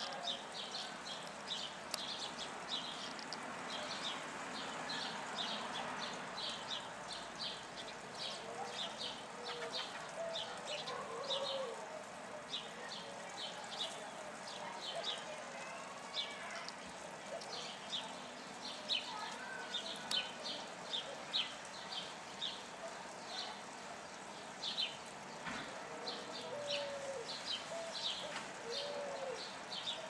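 Wild birds chirping: a steady run of short, high chirps about two a second, with a few lower, short curved calls now and then.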